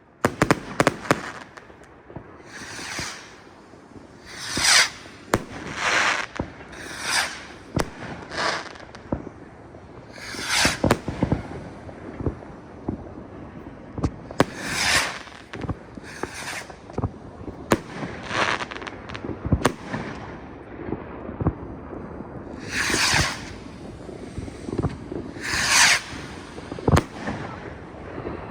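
Fireworks going off: a constant scatter of sharp bangs and cracks from firecrackers, broken by about ten short hissing bursts.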